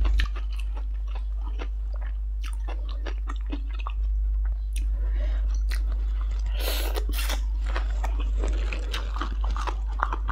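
Close-up mouth sounds of chewing and crunching a mouthful of stir-fried instant noodles and papaya salad, with many short wet clicks and crunches that are busiest in the middle. A steady low hum runs underneath.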